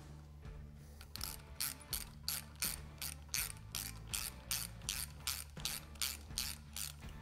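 Small hand ratchet with a hex bit turning the clamp screws of a motorcycle handlebar clutch-side control. Its pawl gives a quick rattle of clicks on each back-swing, about three a second, starting about a second in.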